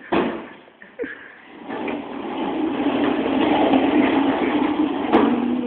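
Small wheels rolling fast over a hard tiled floor: a steady rumble that grows louder, with a sharp knock about five seconds in.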